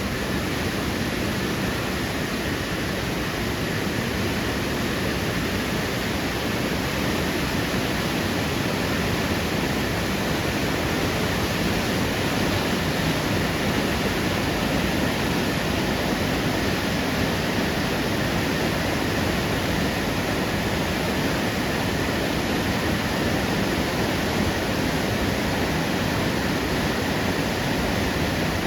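Steady, unbroken rushing noise of water in a heavy downpour, even throughout with no separate drops or splashes standing out.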